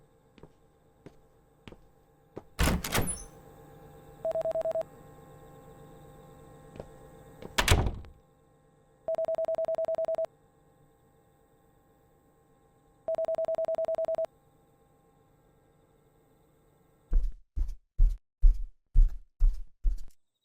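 Two heavy door-like thuds, then a telephone ringing in three short pulsed bursts, then a quick run of about seven knocks on a door near the end.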